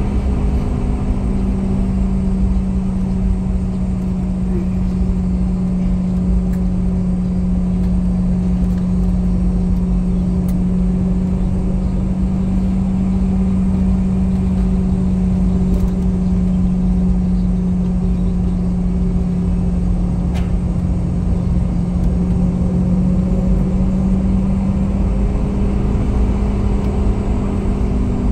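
Boeing 717's Rolls-Royce BR715 turbofan engines running at taxi power, heard from inside the cabin: a steady low drone over a rumble, rising slightly in pitch near the end.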